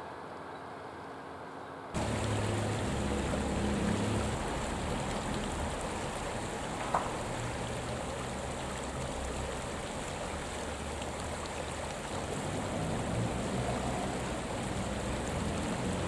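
Running water of a stream, a steady rushing with an uneven low rumble beneath it. It starts abruptly about two seconds in after a quieter stretch of faint hiss. A single brief sharp sound stands out about seven seconds in.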